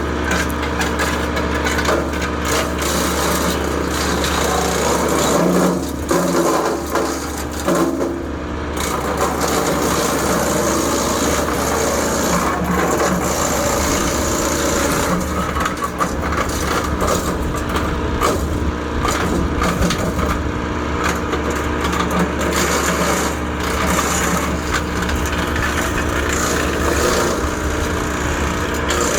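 Land Pride WC1503 PTO wood chipper driven by a tractor, chewing up branches fed into its chute: a steady engine-and-flywheel drone with irregular cracks and snaps of wood being chipped.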